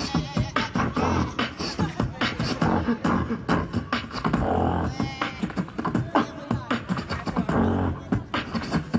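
Beatboxing into a handheld microphone, amplified through a hall PA. A fast run of percussive mouth sounds in a quick rhythm, with a few pitched vocal tones mixed in.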